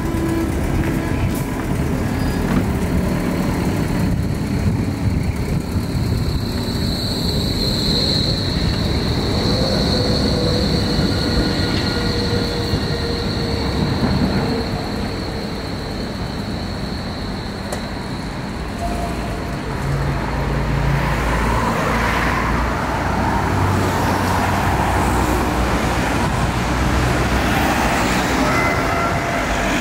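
City street traffic around a Berlin tram stop: a high, steady whine for about twelve seconds while a tram is on the curved track, then cars passing from about twenty seconds in.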